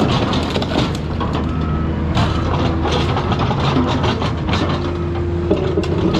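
Heavy excavator running with a steady low engine hum and a humming whine, over repeated cracks and crunches of a car's metal and parts being torn and crushed.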